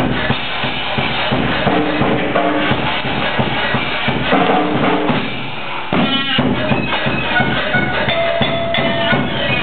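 Live band music driven by drums, with bass drum and snare strikes under held instrument notes.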